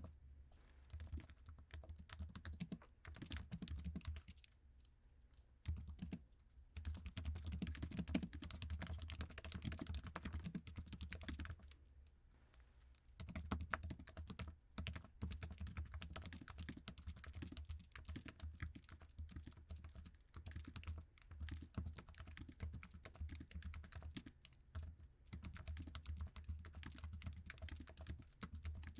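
Typing on an Apple iMac's basic keyboard: quick, continuous runs of key clicks, broken by two short pauses about five and twelve seconds in.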